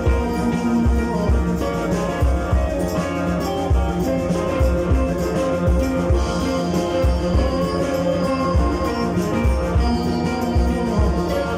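Live blues band playing: electric guitars, electric bass and drum kit, with kick drum hits throughout.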